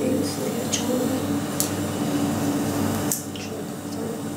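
Compressor nebulizer running with a steady hum and a hiss, with a few light clicks; the sound drops slightly about three seconds in.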